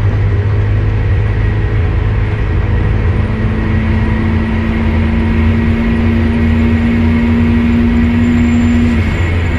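Turbocharged Mazda MX-5's four-cylinder engine pulling hard at speed, its pitch climbing slowly through a gear for several seconds, then dropping near the end as the revs fall.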